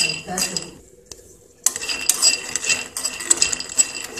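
A metal spoon stirs raw peanuts dry-roasting in a steel kadai: the nuts rattle and scrape against the pan with clinks of the spoon. A short burst of stirring, a pause of about a second, then steady clattering stirring from about a second and a half in.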